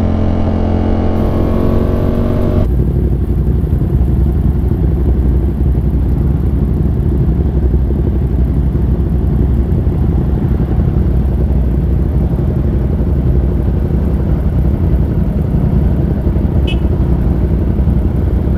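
Yamaha R1M's inline-four engine running steadily under way for the first three seconds or so, then abruptly giving way to heavy wind rush and road rumble on the rider's microphone for the rest of the ride.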